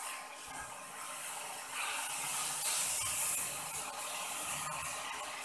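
Green mango pieces frying in a nonstick wok with sugar melting into syrup, sizzling and hissing while a wooden spatula stirs and scrapes them around the pan. The hiss grows louder about two seconds in and eases off near the end.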